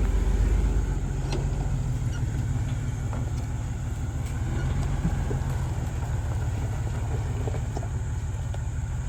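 Jeep engine running with a steady low rumble, with a few faint clicks and knocks over it.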